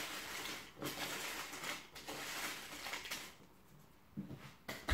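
Walkers potato crisps rustling and crackling as fingers stir them around a bowl, for about three seconds; it then goes quieter, with a few short knocks near the end.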